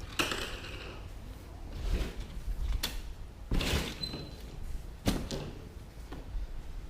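1994 Ford F-250 seat being worked apart: the back half knocking and scraping against the seat bottom's frame as it is wiggled loose. Several knocks and rustling scrapes, the longest about three and a half seconds in and a sharp knock about five seconds in.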